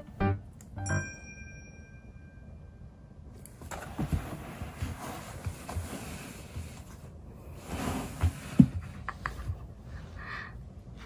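A cat rustling and scraping on cardboard box houses, with a few soft thumps and one sharper thump about eight and a half seconds in. A short piano music phrase fades out in the first second.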